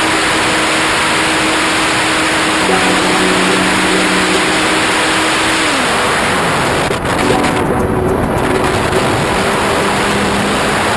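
Wind rushing over a GoPro mounted on the wing of a Multiplex Blizzard RC model plane in flight, with the plane's motor whining under it. The motor's pitch glides down and fades about six seconds in, as if throttled back, and its whine comes back near the end.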